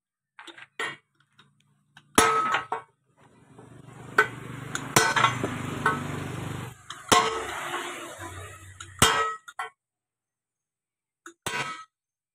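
Hammer blows on a steel drift, driving a new bush into the front-axle spindle housing of a John Deere 5055E tractor: about six heavy ringing clangs at irregular spacing, with a few lighter taps at the start. A steady hum and rushing noise runs under the blows for several seconds in the middle.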